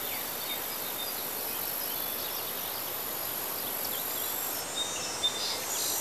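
Nature ambience: a steady high insect drone like crickets, with scattered short bird chirps.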